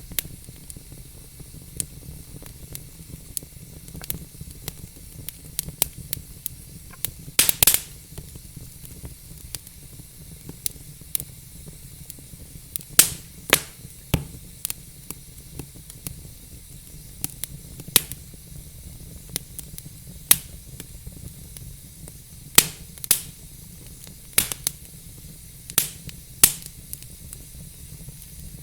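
Wood fire crackling in a fireplace: irregular sharp pops and snaps over a steady low hiss, with a quick cluster of louder pops about seven and a half seconds in.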